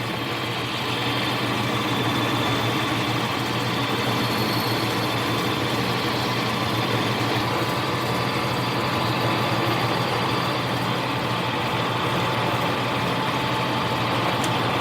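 Small lathe running steadily in high gear, motor and gear train giving a constant hum with a whine above it, while the end of a Delrin workpiece is faced off.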